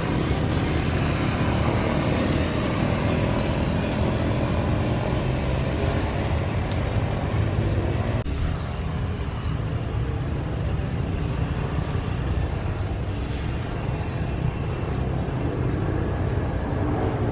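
Steady, loud engine rumble that runs without a break, heaviest in the low end.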